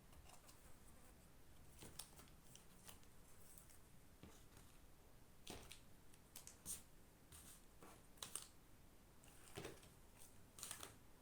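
Slime being squished and stretched by hand, giving faint, irregular sticky crackles and small pops, some in quick little clusters.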